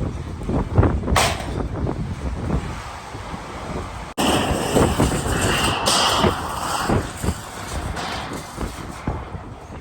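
Strong gusty wind buffeting the microphone with a heavy rumble, mixed with scattered knocks and rattles.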